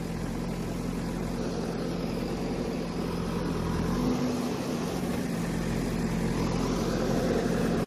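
Diesel engine of a JCB backhoe loader running steadily close by as it clears earth, its engine note rising slightly about four seconds in.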